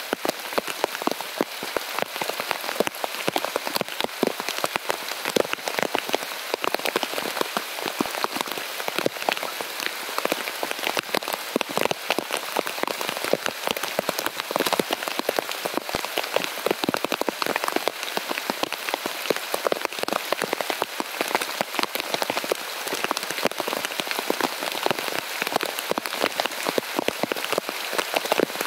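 Heavy rain falling steadily, a dense patter of many individual drops striking a surface close by.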